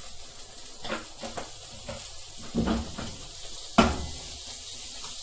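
Mackerel fillets and freshly added butter sizzling in a non-stick frying pan, with a few knocks of the pan against the gas hob's grate as it is lifted and moved, the loudest about four seconds in.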